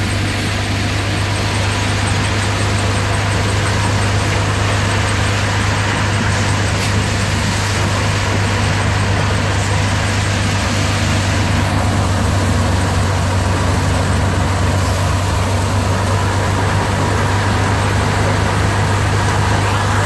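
Soybean thresher running steadily: a constant low hum with an even rushing noise over it, while dry soybean plants are fed into it.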